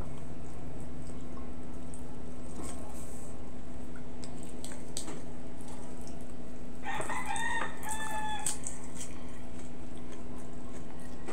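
A rooster crows once in the background, a call of about a second and a half starting about seven seconds in. Under it are scattered small clicks and smacks of eating with the fingers, over a steady low hum.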